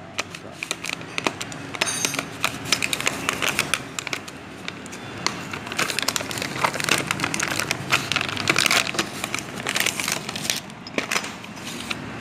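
Clear plastic blister packaging crinkling and crackling as it is handled and turned over in the hand, a dense run of quick, irregular crackles.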